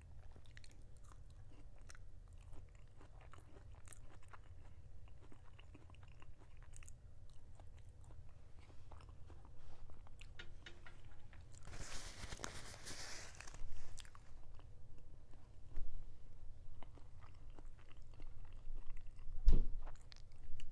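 Close-miked chewing and biting of food, with many small wet clicks and crunches. A short burst of hiss-like noise comes about twelve seconds in, and a single low thump near the end is the loudest sound.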